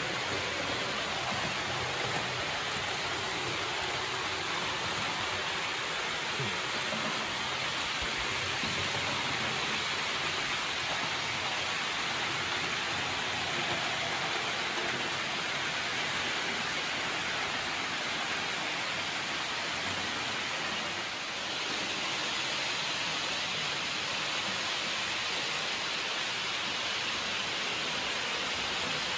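Steady hissing rolling noise of H0 model trains running on the layout's track: many metal wheels on rails, with the whirr of their motors.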